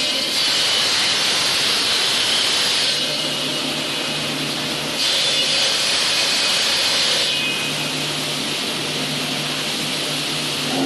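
Electric marble cutter running with its marble saw blade cutting into stone: a harsh, loud cutting noise for the first few seconds and again in the middle, easing off in between and near the end to the steadier hum of the motor.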